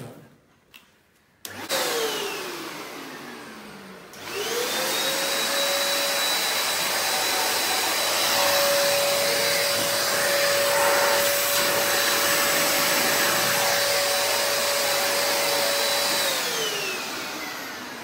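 Euro Fine EF6239 1000-watt handheld vacuum cleaner motor: a short start about a second and a half in that winds down, then switched on again about four seconds in, spinning up to a steady whine. It runs for about twelve seconds, then is switched off and spins down near the end.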